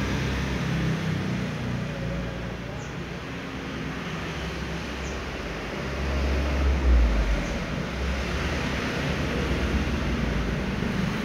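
Steady background rumble and hiss, like road traffic, swelling to its loudest a little past the middle.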